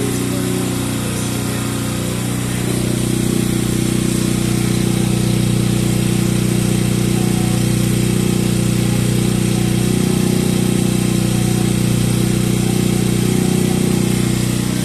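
A-iPower A2000iS inverter generator's small four-stroke engine running steadily. About two and a half seconds in, its speed and loudness rise a little, then hold even.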